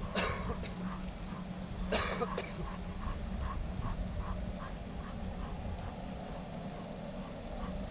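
A person coughs twice, about two seconds apart. Faint, evenly spaced soft ticks follow, about two or three a second, over a steady low hum.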